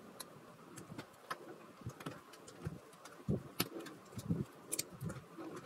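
Faint, irregular clicks and a few soft knocks of small plastic LEGO pieces being handled.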